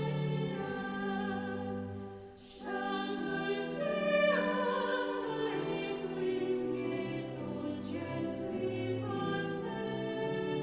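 Choir singing a hymn, sustained sung notes with a brief break for breath about two seconds in.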